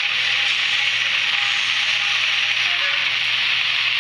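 Model locomotive's DCC sound decoder playing its station soundscape through the loco's tiny speaker: a steady, hissy ambient hustle and bustle with a few faint short tones, over a steady low hum.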